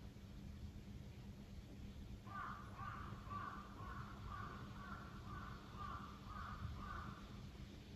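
A crow cawing, a run of about ten short caws at roughly two a second, starting about two seconds in and stopping shortly before the end.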